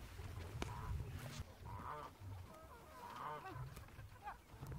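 Poultry calling: several short squawks and honking calls, with a sharp click about half a second in and a low steady rumble underneath.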